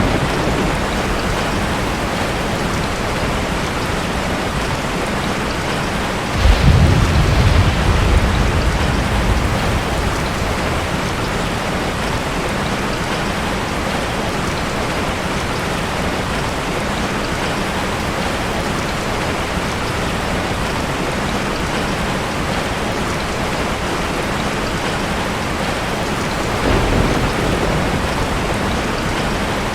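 Steady heavy rain with two rolls of thunder. The louder, low rumble comes about six seconds in and fades over a few seconds; a softer one comes near the end.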